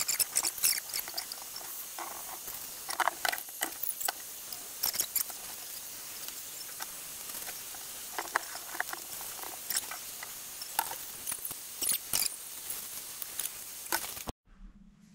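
Handheld steamer hissing as its head is held against a wooden board to soften the face for bending, with irregular spitting and crackling of steam and water. Cuts off suddenly near the end.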